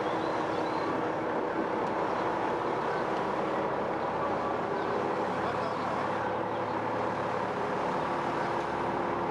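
An engine running steadily: a constant drone with a low, even hum.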